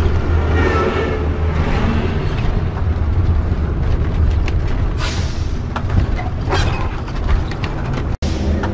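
Cab noise of a motorhome on the move: a steady low engine drone with road noise, and a few sharp knocks partway through. Oncoming lorries pass at the start, and the sound cuts out for an instant near the end.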